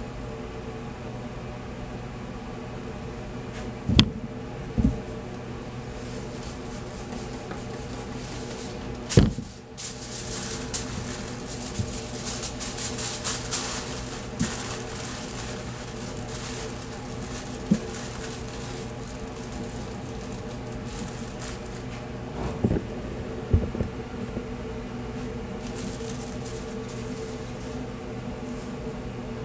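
Aluminium foil crinkling and rustling for several seconds in the middle as gloved hands handle foil-wrapped meat, over a steady fan hum. Several sharp knocks stand out, the loudest about four and nine seconds in.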